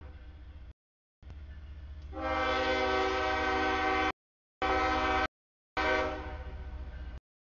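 CSX freight locomotive's air horn sounding for a grade crossing as the train approaches and passes: a long blast, a short one, then another blast that fades, over the low rumble of the train. The sound drops out completely three times for about half a second.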